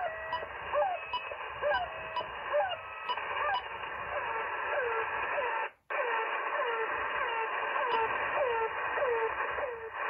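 Shortwave receiver in upper-sideband mode playing Russian military channel markers through band hiss. On 3243 kHz, 'The Goose', a short rising chirp and a brief steady tone repeat about every half second. After a short dropout as the receiver is retuned to 3510 kHz about six seconds in, a different marker of falling tone sweeps repeats about twice a second.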